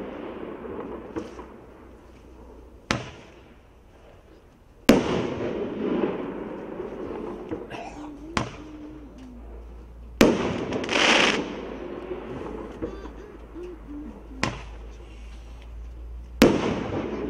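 A 1-inch, 8-shot Roman candle firing: six sharp bangs, spaced about two to four seconds apart in three pairs. The second bang of each pair is louder and trails off in about a second of rushing noise.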